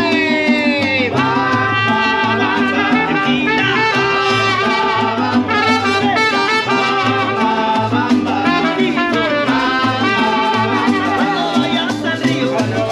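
Live mariachi band playing: violins and trumpet carrying a bright melody over strummed guitars and a guitarrón's stepping bass line.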